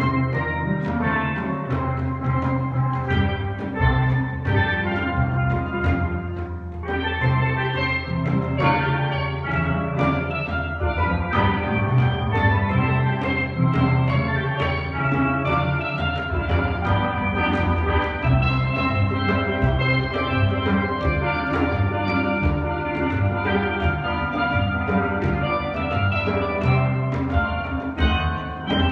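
A steel band playing a tune together: bright, ringing tenor and double-second pan notes struck in a busy rhythm over a line of low bass pan notes.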